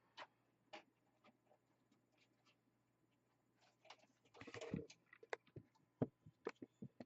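Faint, scattered clicks and rustles of power-supply cables and connectors being handled in a PC case, with a short scraping rustle about four and a half seconds in and several sharper clicks after it.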